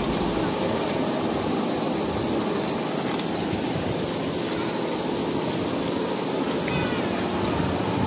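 Steady roar of a waterfall and rushing water, even and unbroken.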